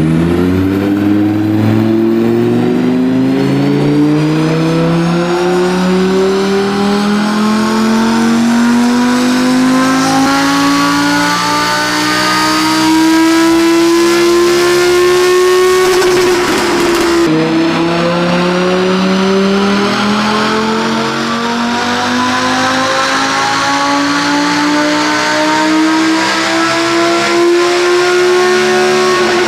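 Audi R8 4S 5.2-litre V10 pulling at full load on a chassis dyno, its pitch climbing steadily through one long run. About sixteen seconds in the note breaks up roughly, then a second long pull climbs again from lower revs and eases off at the end.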